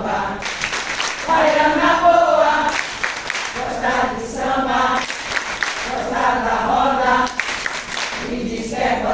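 A group of voices singing together in short repeated phrases, each about a second long, with brief gaps between them.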